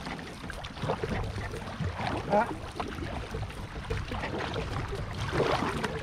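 Canoe paddles dipping and pulling through the water in irregular splashes, over a steady low rumble of wind on the microphone. A short pitched cry about two seconds in is the loudest sound.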